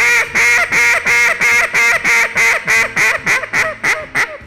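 Duck call blown in a hunting-style hail call: a long run of loud, rapid quacks that come shorter and faster toward the end. Louder and longer than any real duck can call, it is meant to catch the attention of ducks flying by hundreds of yards away.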